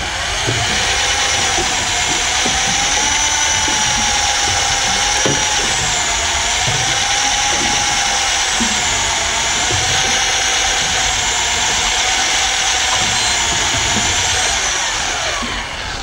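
Fishing reel winding in line with a hooked fish on, a steady mechanical whine whose pitch slowly wavers, with light knocks underneath; it winds down near the end.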